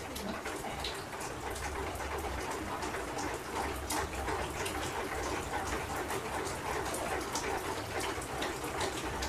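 Steady rain falling: an even hiss with a dense scatter of small drop ticks.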